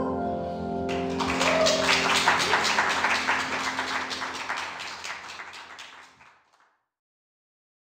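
A grand piano's final chord rings on while audience applause starts about a second in, then fades away.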